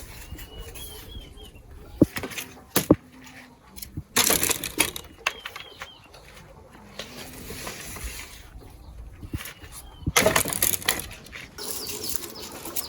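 Chicken-farm yard sounds: hens clucking now and then, small birds chirping, and two loud bursts of rustling or flapping, with a couple of sharp knocks early on.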